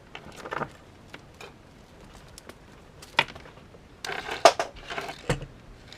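Light clicks and knocks of small objects being handled on a workbench, with a short cluster of rattling clicks about four seconds in.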